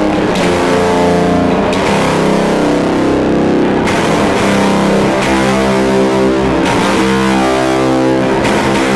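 Electric guitar played loud through an EarthQuaker Devices Fuzz Master General fuzz pedal on its third setting, into a Fender Deluxe Reverb amp: heavily fuzzed chords rung out and sustained, with a new chord struck every two to three seconds.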